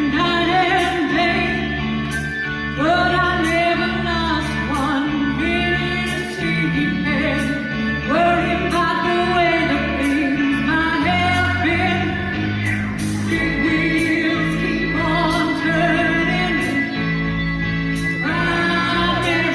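A choir singing a 1970s pop song live, with band accompaniment: a bass line and drums.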